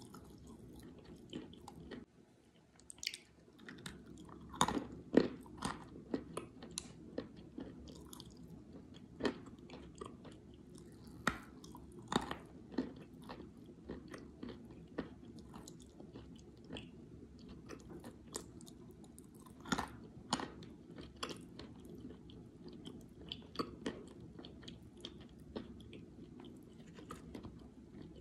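Close-up chewing and biting of dry chalk and clay pieces: irregular sharp crunches with wet mouth sounds between them, a few bites much louder than the rest.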